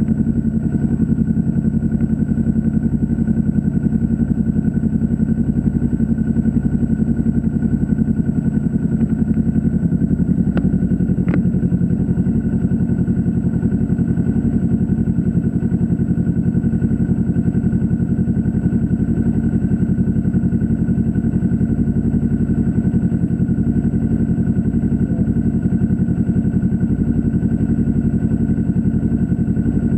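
Loud, unchanging electrical buzz from a camera's external-microphone input with the microphone disconnected, with a faint high whine above it. Two small clicks come about ten and eleven seconds in.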